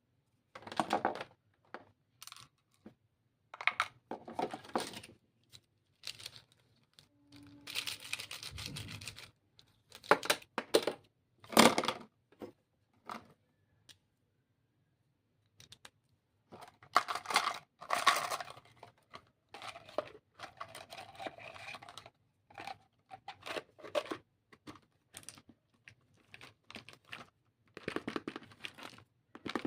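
Stationery packaging being opened and handled: irregular bursts of tearing and crinkling with short pauses between.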